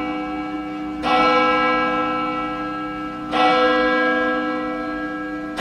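A church bell tolling, struck about every two seconds, each stroke ringing on with many overtones and slowly fading.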